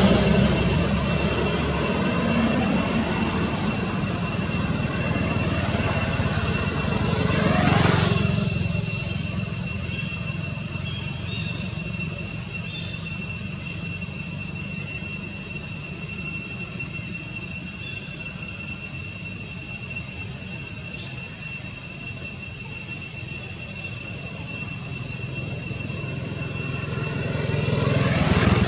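Outdoor background noise: a steady high-pitched whine over a low rumble. The rumble swells about eight seconds in and again near the end.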